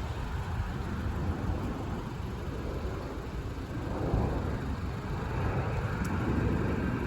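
Jet airliner engine noise, a steady rumble that grows louder in the second half.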